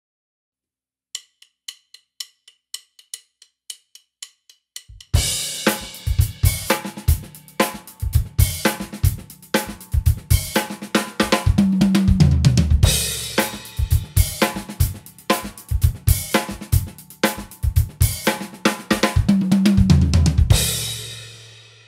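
Drum kit: a count-in of evenly spaced light ticks, then a groove on bass drum, snare and cymbals, twice broken by an odd-metre fill in 15/16 with strokes stepping down in pitch, ending on a cymbal that rings and fades out.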